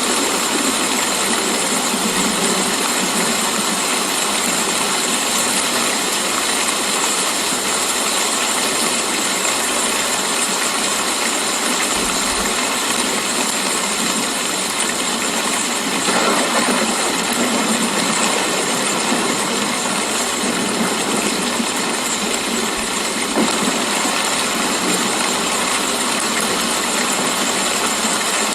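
Steady rain: an even hiss of falling drops. There is a slightly louder burst of spatter about sixteen seconds in and a single sharp tap a few seconds later.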